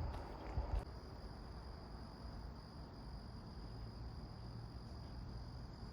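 Steady, high-pitched drone of insects in the undergrowth, holding one even pitch. A few footsteps on the trail in the first second, then they stop.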